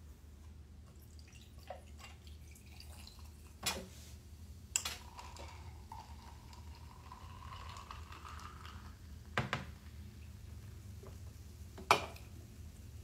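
Cola poured from a can into a glass of ice, fizzing, the pitch of the pour rising slowly as the glass fills. A few sharp clinks and knocks, the loudest near the end as the can is set down on the table.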